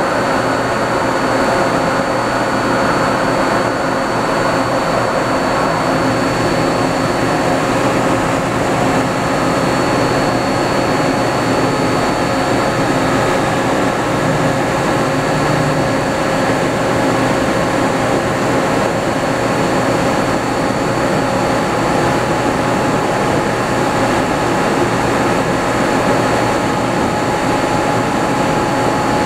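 Berardi ALTS130 C machining center running under power: a steady mechanical hum with a high whine above it while its milling head swivels to a new position.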